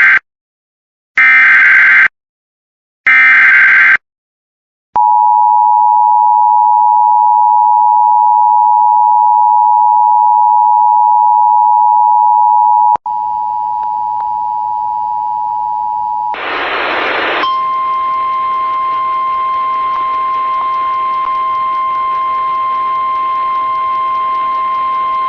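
Emergency Alert System header: three short screeching data bursts, then the steady two-tone EAS attention signal. About two-thirds of the way in the sound switches to a hissier broadcast copy, where a one-second burst of data noise is followed by the single steady 1050 Hz NOAA Weather Radio warning tone.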